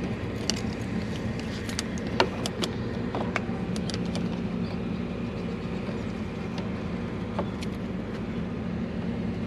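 Scattered sharp clicks and taps of hand tools and plastic trim clips, most of them in the first few seconds, over a steady low hum.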